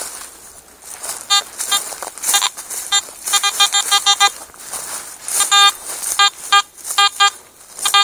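Garrett AT Pro metal detector beeping in short, rapid bursts as its coil sweeps back and forth over a target. The signal reads as a non-ferrous hit mixed with iron.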